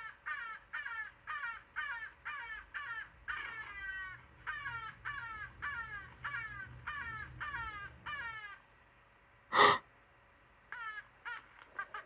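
A bird's cawing squawks, played back through a laptop's speakers, repeating about twice a second until a little after eight seconds in. A single loud thump comes near ten seconds, then a few more short calls follow near the end.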